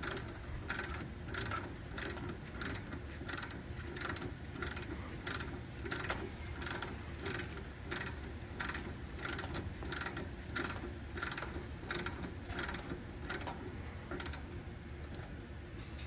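Ratchet wrench clicking in a steady rhythm, about three clicks every two seconds, as it turns an air-conditioner service valve stem open all the way to back-seat it. The clicks thin out near the end.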